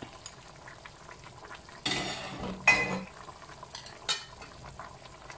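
Chicken in soy sauce simmering in a wok with a low bubbling hiss, as cheese tofu balls are dropped in with chopsticks. There is a louder scrape about two seconds in, a sharp ringing clink of utensil on wok or plate just under a second later, and another click about four seconds in.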